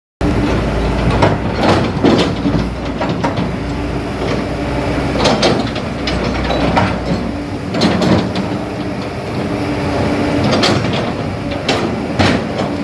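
Kobelco SK200 excavator's diesel engine running steadily with a low rumble and a high whine, broken every second or two by short sharp bursts of noise from the machine.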